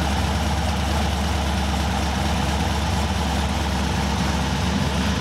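Cammed GM V8 engine idling steadily after its first start on a fresh heads-and-cam install and new tune.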